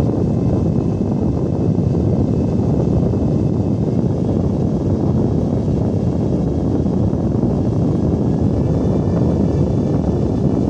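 Scythe Gentle Typhoon 120 mm PC fan, the 5400 rpm model, running at over 4,000 rpm as its PWM speed setting is raised: a loud, steady rush of air with a faint whine above it.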